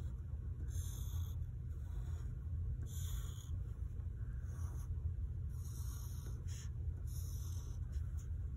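Pencil scratching across paper in a series of short strokes as lines are drawn, over a steady low hum.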